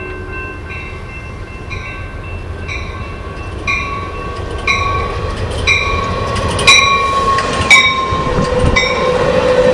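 Cab-car-led Amtrak California bi-level passenger train rolling past close by, its bell ringing about once a second and growing louder as it nears, over the rumble of its wheels. Near the end a steady metallic squeal sets in as the cars go by.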